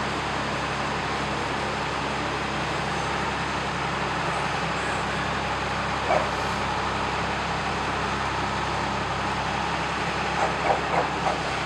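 An engine running steadily with a low hum, with short dog barks once about six seconds in and a few times near the end.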